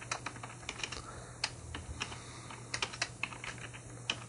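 Computer keyboard typing: scattered, uneven keystroke clicks.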